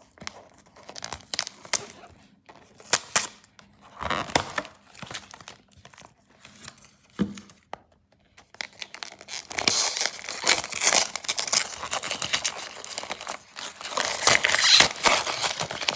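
Tissue paper and wrapping paper crinkling and tearing as a gift-wrapped box is unwrapped. It starts as scattered rustles, then becomes continuous crinkling and tearing from about halfway through.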